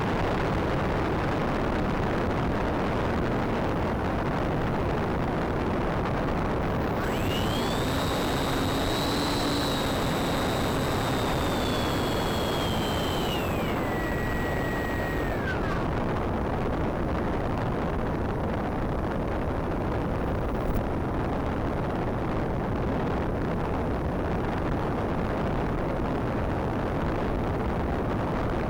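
Steady rushing noise of a Bixler RC foam plane in flight, heard from its on-board camera. About seven seconds in, the electric motor's whine rises steeply in pitch as the throttle opens, holds high for several seconds, then drops in two steps and dies away about sixteen seconds in.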